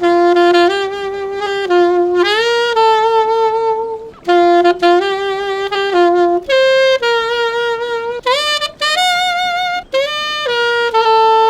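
Solo saxophone playing a slow melody of held notes in short phrases, with brief breaths between phrases.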